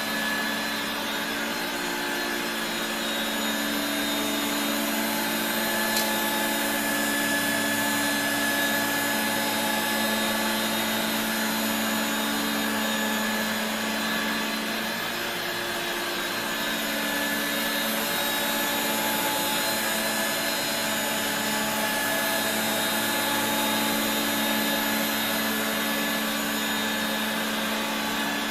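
Regina Electrikbroom PowerTeam stick vacuum running steadily, its suction motor and powered beater-brush nozzle making a continuous whine. It eases slightly about halfway through, and there is a small sharp click about six seconds in.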